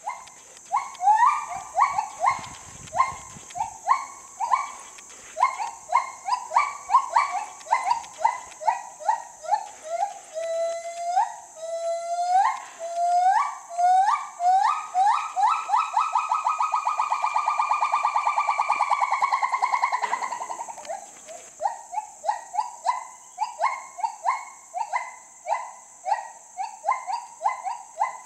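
Gibbon singing: a run of short whooping notes, each sliding upward, that grow into bigger rising sweeps and then a long quavering trill held for about five seconds past the middle, followed by more short rising whoops. A steady high hiss runs underneath.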